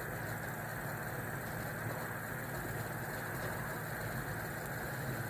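Steady low rumble and hiss of a stovetop burner flame burning a hydrogen-based fuel under a saucepan of water that is heating.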